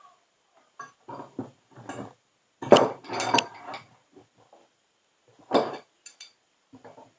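Irregular metal clinks, clanks and scrapes as a part of a frost-free yard hydrant is worked tight with tools, loudest about three seconds in and again a little past halfway.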